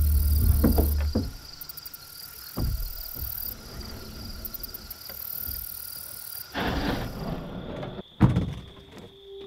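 Background music fading out about a second in, leaving crickets and other insects chirping in a steady high pulsing chorus, with a few soft knocks and a short scraping rush near the end.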